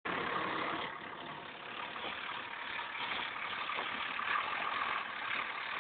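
Renault Ares 640 RZ tractor's diesel engine running steadily while the tractor reverses with its front loader raised.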